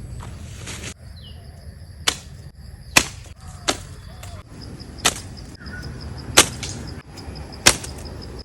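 Tamarind seeds being launched one after another, each with a short sharp snap: six snaps, roughly one every second or so. A faint, steady, pulsing high tone runs behind them from about three seconds in.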